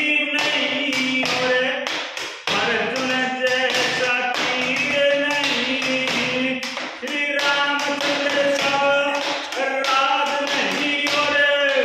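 A man singing a Haryanvi ragini folk song unaccompanied, with long drawn-out notes, keeping a steady beat by slapping his hand on a wooden desk.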